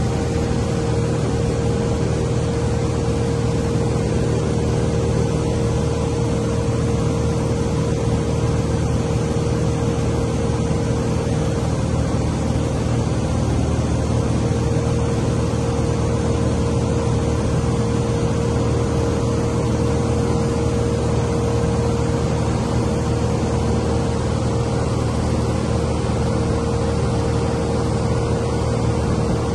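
Light aircraft's piston engine and propeller droning steadily in cruise, heard from inside the cabin, with a low hum under a steady mid-pitched tone and rushing air.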